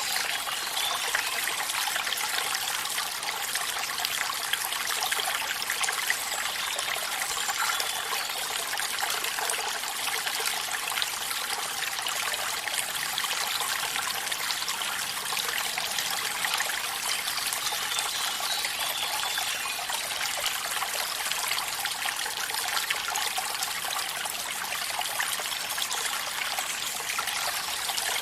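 Water of a small stream trickling and splashing steadily.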